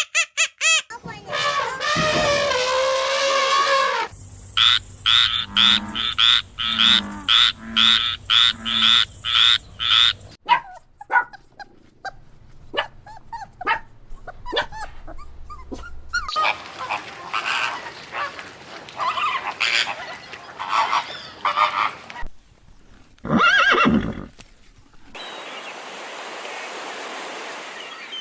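Animal calls of several kinds, one clip after another: a long call falling in pitch, then a quick run of short repeated calls, more scattered calls, and one loud call near the end, followed by a steady hiss.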